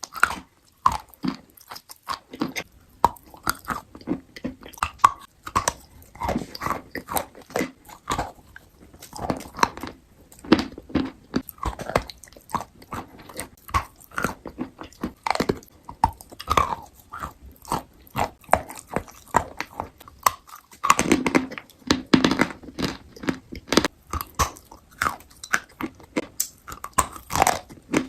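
Crunchy food being bitten and chewed close to the microphone: a dense, irregular run of sharp crunches several times a second, heavier for a couple of seconds about three quarters of the way through.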